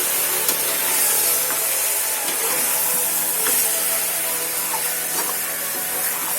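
Marinated chicken sizzling in hot oil with onion and tomato in a pan, a steady frying hiss, with a few light clicks of the spoon stirring it.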